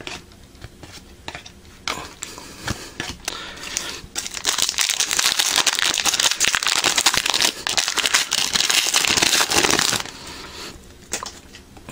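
A trading-card pack wrapper crinkling and crackling as it is handled and torn open. There is a soft rustle at first, then about six seconds of dense, loud crinkling starting around four seconds in.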